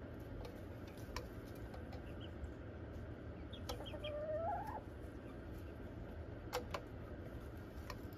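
Hens feeding from a barrel feeder with plastic ports: scattered sharp taps of beaks pecking in the feeder ports, and one hen's call, about a second long, rising in pitch near the middle.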